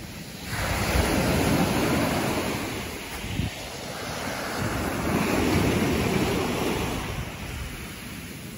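Small sea waves breaking on a pebble beach and washing up over the stones. There are two surges of surf, one starting about half a second in and one about four and a half seconds in, each lasting a few seconds.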